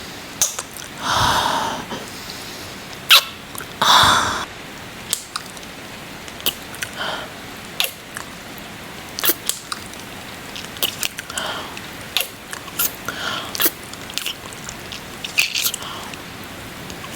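Close-miked ASMR kissing sounds: many short wet lip smacks and mouth clicks at irregular spacing, with two breathy exhales about one and four seconds in. A steady hiss runs underneath.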